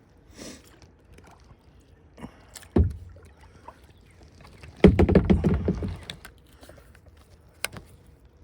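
Knocks and rattling bumps against a kayak: one knock, then about a second of loud clattering knocks, and a single sharp click near the end.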